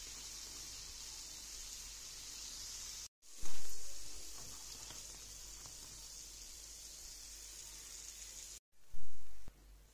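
Hot oil sizzling steadily around squares of yogurt dough frying in a pan. It cuts out twice, and each time it comes back loud and dies down over about a second.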